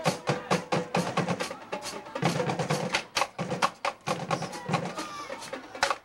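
Drums playing a fast, steady rhythm of sharp hits, several a second, in the manner of a school drumline at a football game.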